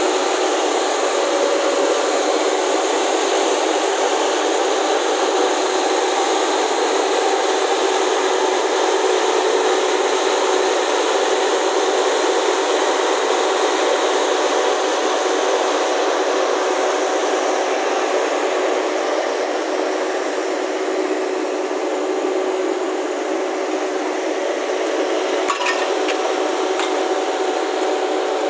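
Truck-mounted TDM-M10 fog cannon running, its large fan blowing out disinfectant mist: a loud, steady rush of air with a faint hum, plus a couple of faint clicks near the end.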